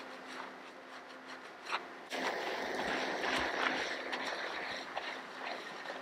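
Water starts running suddenly about two seconds in and rushes steadily for a few seconds over a faint constant hum.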